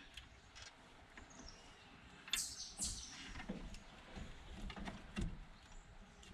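Faint handling noise of wires and clips being fitted for a positive connection: scattered small clicks, with two short scrapes about two and a half and three seconds in.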